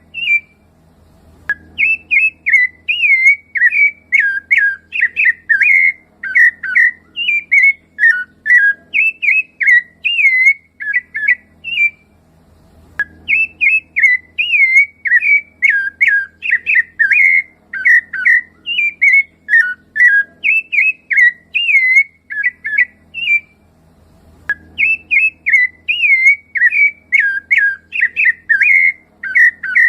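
Rufous-bellied thrush (sabiá-laranjeira) singing a fast run of clear, fluted whistled phrases, breaking off briefly about a second in, around twelve seconds in, and around twenty-four seconds in.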